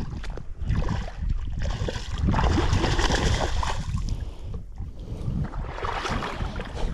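Wind rumbling on the microphone, with water splashing as a hooked trout is landed at the bank; the splashing is loudest from about two to four seconds in.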